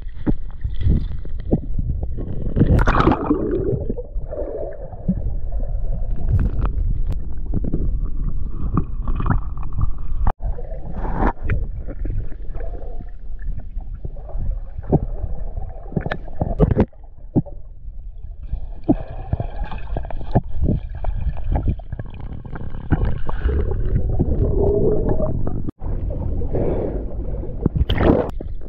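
Muffled underwater sound picked up by a submerged camera: a continuous low rumble with gurgling bubbles, broken by short sharp knocks every few seconds.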